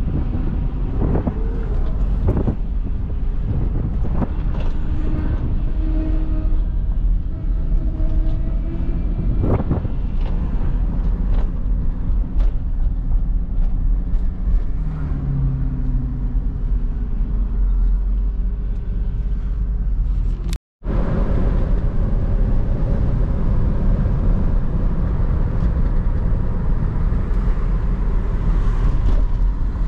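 Van driving, heard from inside the cabin: steady low rumble of the engine and tyres, with a few short knocks in the first half. The sound cuts out briefly about two-thirds through.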